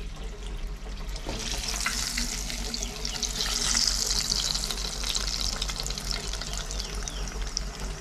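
Battered bird pieces deep-frying in hot oil in a pot: a steady sizzle with crackling, growing louder about a second and a half in and strongest around the middle.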